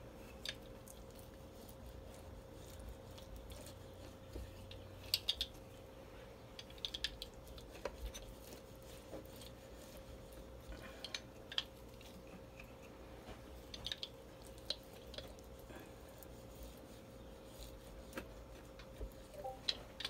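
Wheel pizza cutter rolling through a baked pizza crust and scraping on a metal pizza tray: faint scattered crunches and clicks every second or two.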